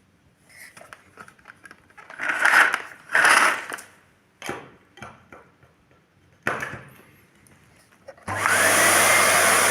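Plastic parts of a Miele S528 canister vacuum being handled, with scraping and clattering bursts and a few sharp knocks. About eight seconds in, the vacuum's motor switches on and runs steadily with a low hum and a whine that rises as it spins up.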